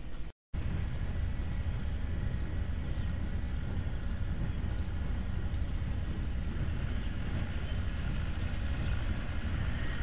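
Steady wind rumbling and buffeting on the microphone outdoors, with a few faint high bird chirps. The sound drops out for a moment about half a second in.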